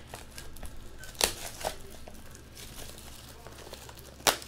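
Cellophane wrapper on a sealed trading-card box crinkling and tearing as it is pulled off, with a few sharp crackles, the loudest near the end.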